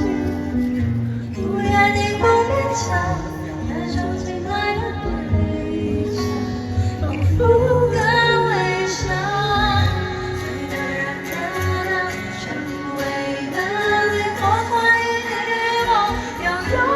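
Live pop concert music: a woman singing a slow, emotional love song over the band's backing.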